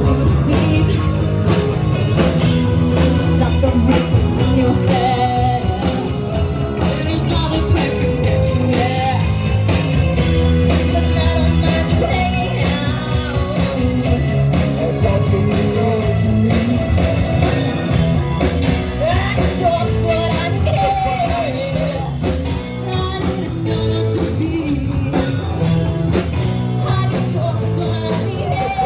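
Rock music with electric guitar, drums and a singing voice, playing steadily.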